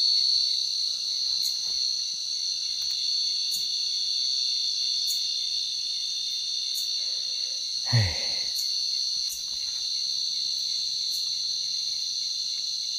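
Steady, high-pitched chorus of crickets trilling at night. About eight seconds in, a brief sound falling in pitch cuts across it.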